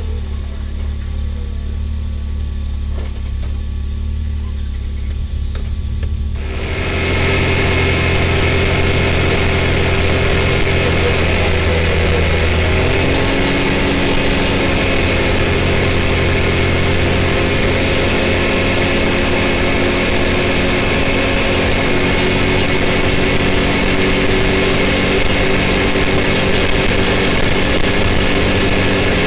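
Can-Am Maverick X3 side-by-side running at low speed. About six seconds in it grows louder as the machine speeds up, then holds steady at road speed.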